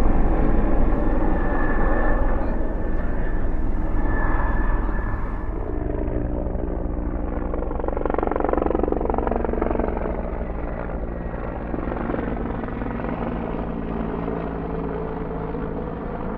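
US Park Police helicopter flying overhead, its rotor and engine running steadily and slowly getting quieter.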